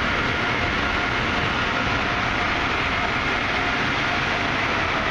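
Steady, loud mechanical roar of car wash machinery running, with faint held whines in it and no breaks.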